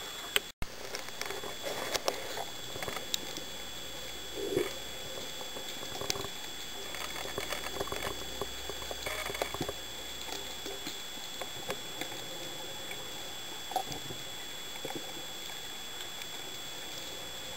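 Underwater sound picked up by a diving camera: scattered small clicks and crackles with faint gurgling, over a steady faint high whine. The sound drops out for an instant near the start.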